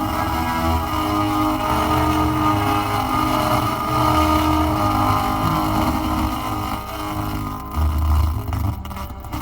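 Film soundtrack playing through a car's multimedia speakers: sustained tones over a low rumble, with no dialogue.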